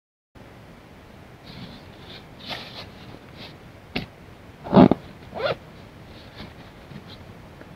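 Rustling and handling of nylon gear pouches and a stuff sack on a fabric groundsheet: scattered soft rustles, a sharp click about four seconds in, and two louder handling bumps soon after.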